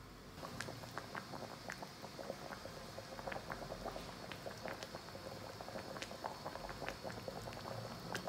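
Liquid bubbling in a pan around a whole beef tongue, a steady run of small pops and crackles that begins about half a second in.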